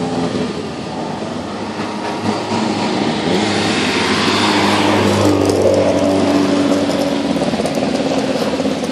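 Modified rally car driving past slowly, its engine running steadily at low revs. The sound grows louder as the car passes close, about five seconds in, with a few sharp clicks and rattles as it goes by.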